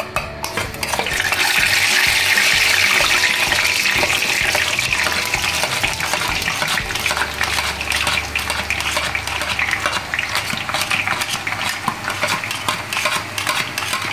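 Gram-flour batter dropping through a perforated steel cylinder into hot oil, sizzling strongly as the boondi fry. The sizzle swells about a second in. Many sharp ticks run through it, with a metal spoon scraping and tapping against the steel.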